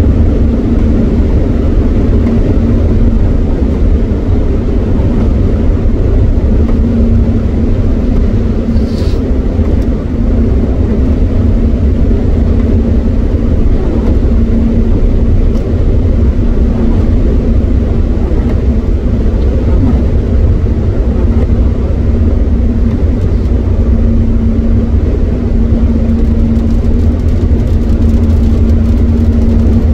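Steady road noise inside a car cruising at motorway speed on a rain-soaked road. A low rumble of tyres and wind carries a steady hum from the drivetrain.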